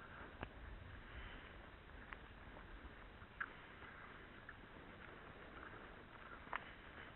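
Faint low rumble and hiss of a mountain bike rolling along a rutted dirt track, with a few scattered sharp clicks and rattles from the bike as it goes over bumps.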